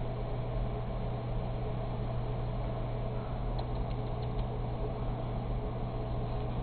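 Steady hum of computer cooling fans, with a low and a higher tone held constant and a few faint clicks a little past the middle.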